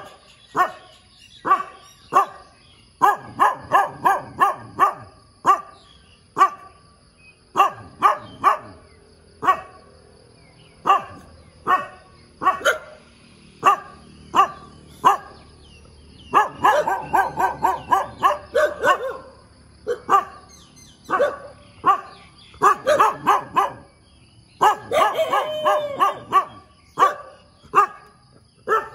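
A dog barking over and over, sometimes in single barks and sometimes in quick runs of barks, the densest runs about halfway through and again near the end.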